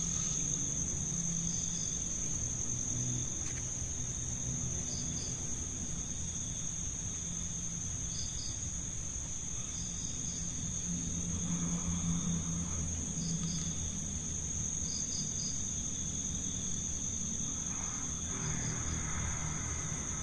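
Night insects: a steady high-pitched insect trill, with short cricket chirps every few seconds, over a faint low hum.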